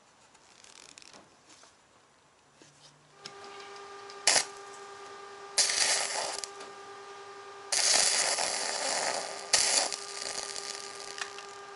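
Stick (MMA) arc welding on steel wire mesh: the arc crackles and spits in several bursts of up to two seconds, starting about three seconds in, over a steady hum. The coated mesh welds with heavy spatter and smoke.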